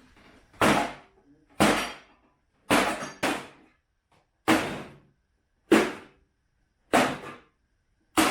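Repeated heavy blows on a microwave oven, eight sharp strikes about a second apart, each dying away quickly.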